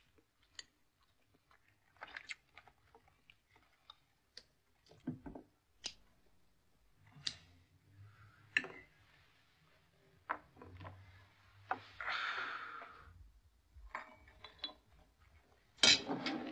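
Quiet sounds of a meal at a table: scattered light clicks and clinks of utensils, cartons and bottles, with chewing. A short rustle comes a little past the middle, and a louder knock near the end.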